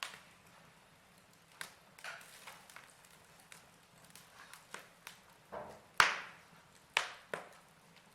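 Fire crackling: irregular sharp pops and snaps, the loudest about six seconds in and another a second later.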